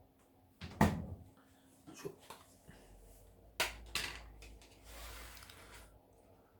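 Dishes and food containers being handled in a kitchen: several separate knocks and clinks, the loudest about a second in, then a soft rustling noise for about a second near the end.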